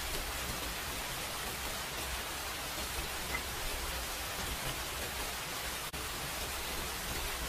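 Steady, even hiss of a high-gain microphone. Faint soft clicks of a spoon and fork cutting a large meatball in broth barely rise above it.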